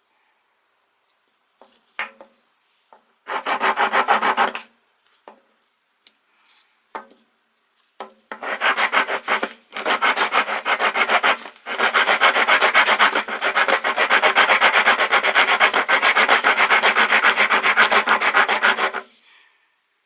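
Daiso's coarse-cut half-round steel woodworking rasp filing wood. It starts with about a second of rasping strokes and a few scattered short scrapes, then gives about eleven seconds of steady, rapid back-and-forth rasping that stops sharply near the end.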